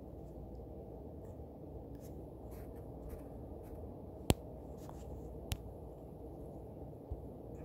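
Faint light taps and scratches on a phone's touchscreen, with one sharp click about four seconds in, over a steady low hum.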